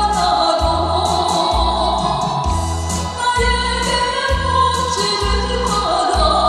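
A woman sings a Korean trot song through a microphone over amplified backing music with a steady beat and cymbal ticks.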